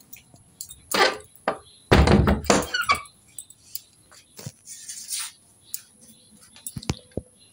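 Knocks and rustles of things being handled close to the microphone, with a louder thump and scuffle about two seconds in and a few small clicks near the end.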